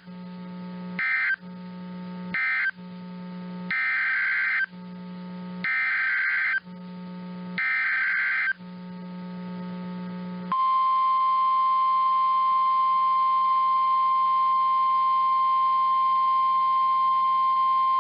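Emergency Alert System SAME data bursts: the short end-of-message bursts closing one alert, then three one-second header bursts opening the next, followed about ten and a half seconds in by the steady 1050 Hz NOAA Weather Radio warning alarm tone. A steady low hum runs underneath.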